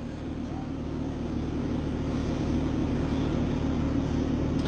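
A steady low mechanical drone, like a motor, slowly growing louder.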